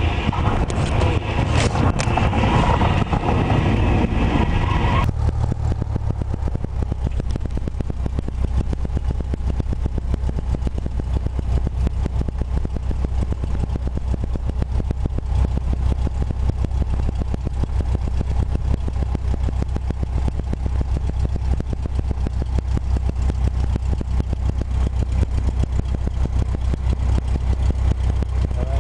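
Cessna 172 Skyhawk's engine and propeller heard from inside the cabin, droning steadily at low power while taxiing. A louder, hissier stretch in the first five seconds cuts off abruptly, leaving a lower, even drone with a fast pulsing beat.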